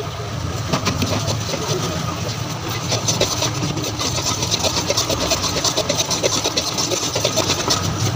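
A long stirring rod scraping and knocking against a large iron kadai as a thick, grainy sweet mixture is worked. The scrapes come rapidly and rhythmically, growing denser about three seconds in, over a steady low hum.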